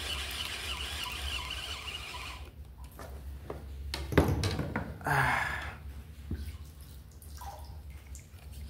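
Water trickling and splashing close by, with a few knocks. A steady hiss of running water stops suddenly about two and a half seconds in, a sharp knock comes about four seconds in, and a short splash follows about a second later.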